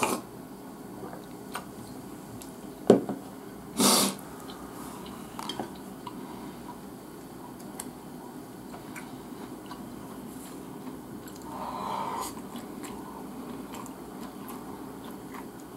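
A person eating rice with chopsticks: soft chewing and small clicks of chopsticks against a bowl. A sharp click comes about three seconds in, and a short louder noise about a second later.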